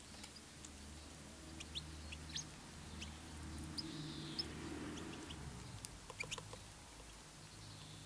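Small songbirds giving short, scattered high chirps while feeding, with a quick run of sharp ticks about six seconds in. A low rumble in the background swells in the middle and fades.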